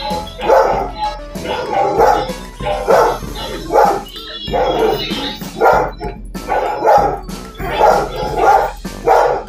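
A dog barking over and over, a dozen or so barks at about one or two a second, mixed with its own earlier barks played back through a TV speaker.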